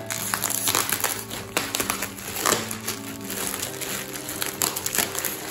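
Plastic air-cushion packing and plastic bags crinkling and rustling in quick, irregular bursts as hands rummage inside a cardboard shipping box, over background music with held chords.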